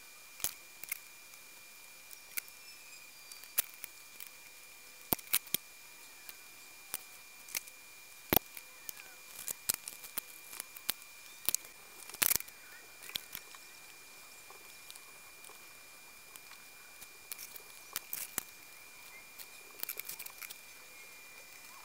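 Scattered sharp clicks and snips of small hand tools working on a circuit board: flush cutters trimming component leads, and the board and tools being picked up and set down on the bench. A faint steady high tone runs underneath.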